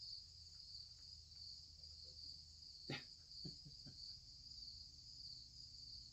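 Steady chorus of crickets trilling, faint, with a single sharp click about three seconds in and a few soft taps just after it.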